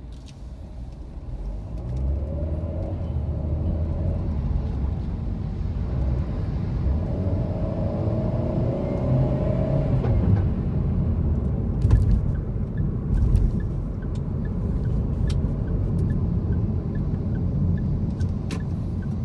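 Car driving off in city traffic, its engine and road rumble growing louder about two seconds in as it pulls away, with a rising engine tone as it speeds up. It then settles into a steady driving rumble, with a faint regular ticking in the second half.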